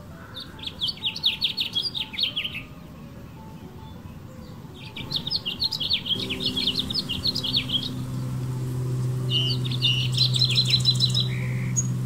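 Male house finch singing three long, rapid warbling phrases, the song a male uses to court females. A low steady hum joins about six seconds in.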